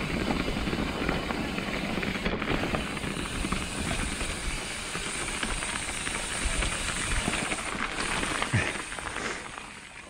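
A mountain bike being ridden on a dirt trail: steady wind noise on the camera microphone with tyre rumble and small rattles and clicks from the bike. It fades out near the end.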